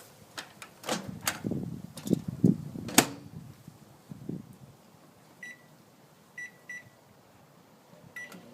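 Emerson MW8778W microwave being loaded and shut: knocks and clicks of handling in the first few seconds, with a sharp click like the door latching about three seconds in. After that come four short keypad beeps as the cooking time is set.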